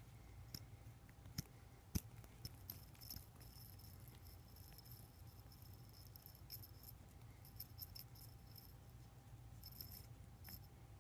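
Faint, irregular gritty clicking and rattling over a low hum, from a brand-new Turnigy unit whose bearing is bad.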